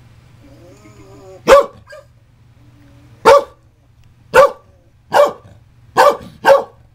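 Scottish Terrier barking: six sharp single barks a second or two apart, the last two in quick succession.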